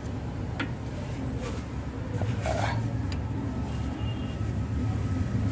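Open-end wrench clicking a few times against the steering tie rod's lock nut as it is tightened, over a steady low rumble.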